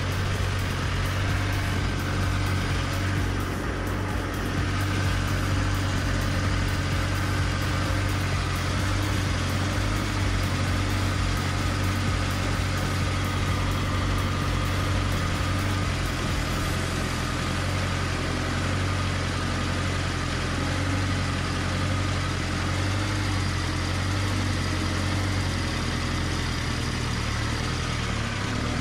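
Freshly rebuilt VMZ tractor engine idling steadily on a test stand after its overhaul, with a fast light ticking over the first half that fades out a little past halfway.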